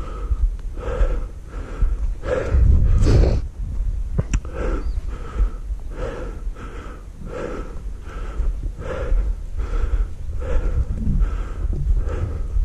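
A person breathing hard and rhythmically, about one breath every second, while walking through the woods, over a steady low rumble on the microphone. There is a single sharp click about four seconds in.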